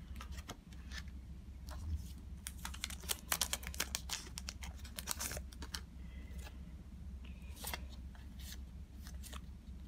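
Foil booster pack wrapper crinkling as it is handled and opened, with a dense run of crackles in the middle, then trading cards sliding against each other as they are handled.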